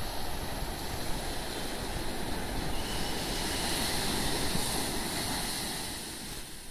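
Sea surf washing up a sandy beach, a steady rushing noise that swells as a wave breaks about halfway through, then fades away near the end.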